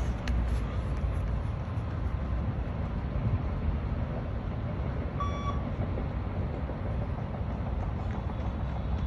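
Beep test signal: one short, high electronic beep about five seconds in, marking the end of a shuttle, over a steady low rumble.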